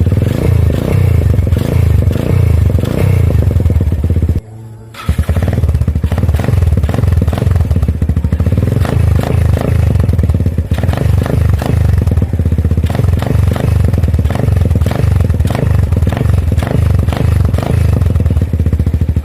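Motorcycle engine running loud through an aftermarket Apido exhaust pipe, a dense, rapid firing beat. It drops out briefly about four and a half seconds in, then resumes.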